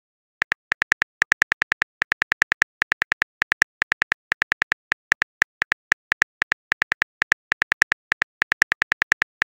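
Phone keyboard typing clicks, a quick, slightly uneven run of short taps about four to five a second as a text message is typed out letter by letter. The run starts about half a second in.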